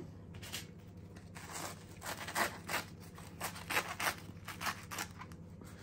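A knife sawing through the crust of a freshly baked bread roll: a run of short scraping strokes, a few a second, some louder than others.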